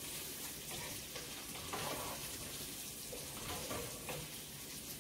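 Bacon sizzling in a frying pan: a low, steady hiss with a few small pops.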